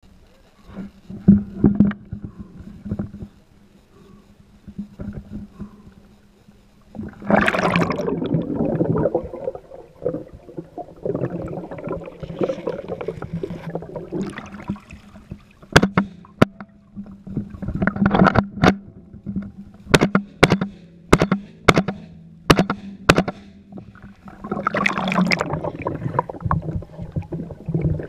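Water sloshing and gurgling around a GoPro mounted on a submerged AR-15, with a faint steady hum. About halfway through comes a run of about a dozen sharp, muffled reports, roughly two a second, from the rifle being fired under water, then more sloshing near the end.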